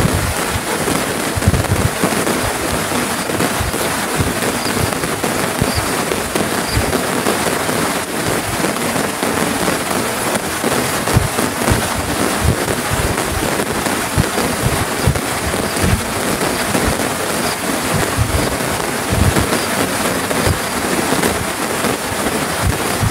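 Heavy rain falling on a tarp stretched over a tent: a loud, dense, steady hiss with many short, low thumps of drops striking the sheet close by.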